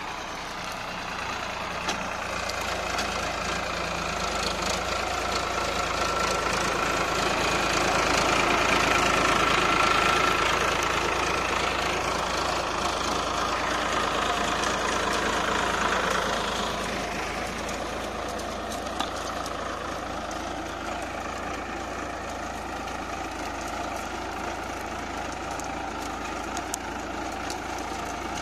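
Farmtrac 45 tractor's diesel engine running steadily under load as it pulls a two-bottom mouldboard plough through the soil. It grows louder toward the middle, then eases off again.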